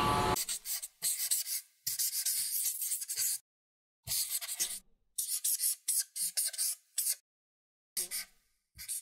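Felt-tip marker scratching across paper in a series of short strokes, with brief silent gaps between them.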